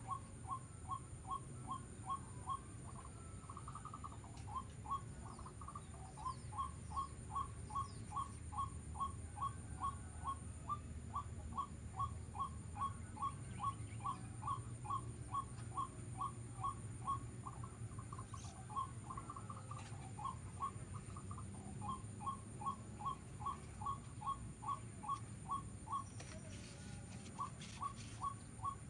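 A bird calling a long series of short, evenly repeated notes, about three a second, pausing briefly a few times.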